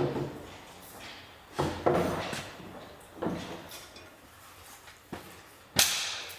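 Hand tools clanking and knocking on the rear engine mounts of a bus engine being freed for removal: a string of about half a dozen sharp knocks, each ringing briefly, the loudest near the end.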